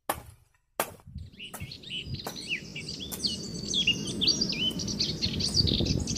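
Birds chirping outdoors: many short, quick chirps that go on after about a second in, over a low, uneven rumble. Two sharp knocks come at the very start and just under a second in.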